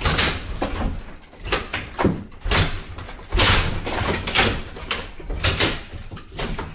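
Lath and plaster wall being pried down with a fire maul: wooden lath strips snapping and plaster breaking away and falling, in a series of knocks and crashes throughout.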